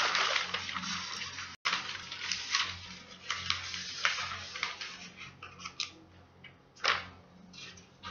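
Sheets of pattern paper rustling and crinkling in irregular bursts as they are folded and handled. The sound cuts out for a split second about one and a half seconds in.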